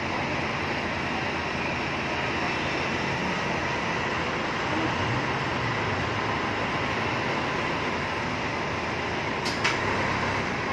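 Steady hum and rumble inside a tow truck's cab with the engine running, and a sharp double click about nine and a half seconds in.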